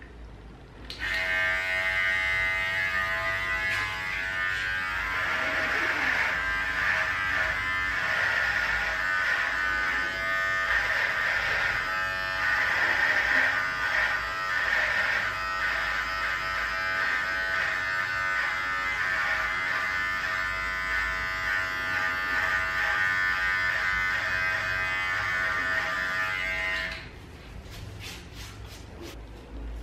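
Handheld electric beard trimmer switched on about a second in and buzzing steadily, its tone wavering as it is run over the face, then switched off near the end, followed by a few small clicks.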